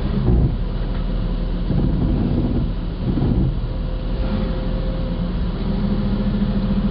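Jeep engine running at low speed, crawling up a sandy off-road trail and heard from inside the cab. Low rumbling surges come a few times in the first half, then the sound settles into a steady hum.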